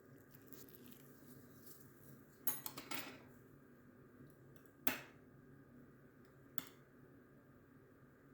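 Light clinks and clicks of small hard tools being handled: a short rattle of several clicks, then one sharp click a couple of seconds later and a fainter one after that, over a faint steady background hum.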